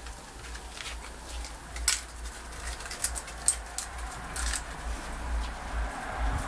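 Small dogs' claws clicking irregularly on a hard concrete floor as they move about, with two sharper clicks about two and three and a half seconds in. A steady low rumble runs underneath.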